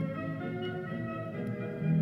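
Brass-and-percussion music playing from an RCA Victor vinyl LP on a turntable, in sustained low notes, with a faint surface click about one and a half seconds in.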